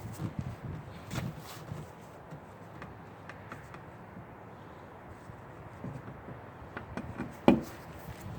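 Handling noises from fitting rubber-footed stands to a generator frame: light rubbing and a few small clicks, with one sharp knock about seven and a half seconds in.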